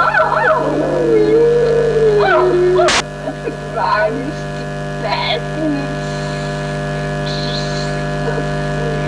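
Steady electrical mains hum with many overtones on an old video recording, under wavering voices in the first couple of seconds. A sharp click comes about three seconds in, followed by a few short, faint bits of speech.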